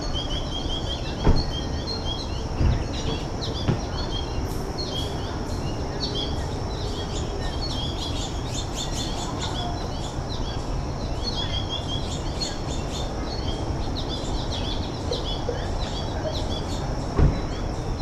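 Many short, high chirps and twitters from a flock of American goldfinches at a seed feeder, over a steady low rumble. A few dull knocks come in the first four seconds and one comes near the end.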